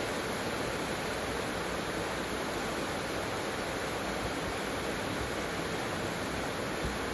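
Heavy rain falling steadily on clay roof tiles and palm foliage, an even hiss that does not let up.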